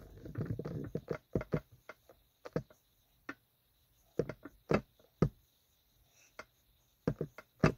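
Makeup sponge dabbing foundation onto the cheek: soft irregular taps and clicks in small clusters, with a short rubbing rustle in the first second.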